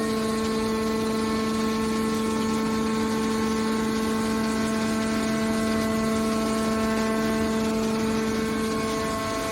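Hydraulic steel wire baler running, with a steady whine over mechanical noise.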